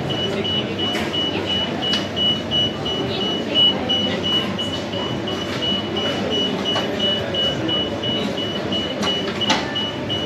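Commercial bakery kitchen noise: a steady background hum with a high electronic beep repeating rapidly and evenly, and scattered clinks and knocks, the sharpest about nine and a half seconds in.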